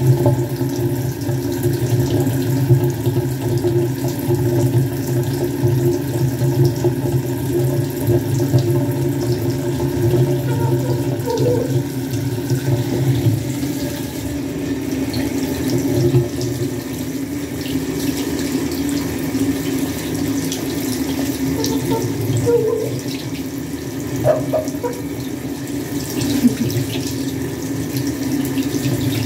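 Bathtub tap running steadily, its stream pouring and splashing over a wet chicken held beneath it.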